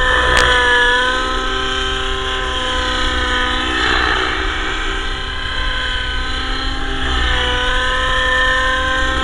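Radio-controlled Avant Aurora 90 helicopter in flight, its motor and rotor whine running steadily with small rises and falls in pitch as it manoeuvres. A single sharp click sounds near the start.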